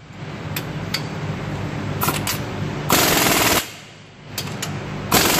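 Air impact wrench hammering the steering gear's mounting bolts tight, in two bursts of under a second each: one about three seconds in and another near the end, with a few short clicks before them.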